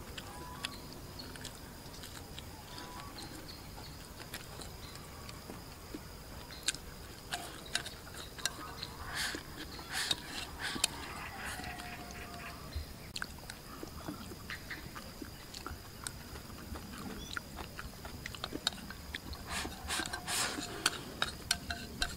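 Chopsticks clicking and scraping against a ceramic rice bowl and a steel wok during a meal, with chewing between the clicks. Near the end comes a quick run of clicks as rice is shovelled from the bowl held up to the mouth.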